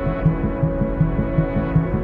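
Ambient music: sustained drone tones over a low throbbing pulse that repeats about three times a second.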